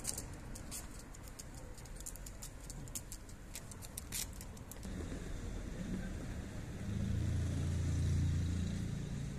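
Light clicking steps on stone paving for the first half. Then a motor vehicle passing with a low rumble that swells, loudest about eight seconds in.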